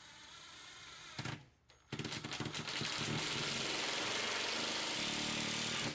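Cordless drill driving a screw through a barn door floor guide into the floor. The motor runs softly, gives a short loud burst about a second in, pauses briefly, then runs hard and steady for about four seconds before cutting off suddenly.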